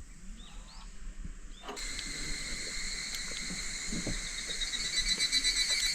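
Insects buzzing in a steady high drone that starts abruptly about two seconds in and turns to a quick pulsing near the end. Before it there are faint short chirps, and low knocks sound here and there.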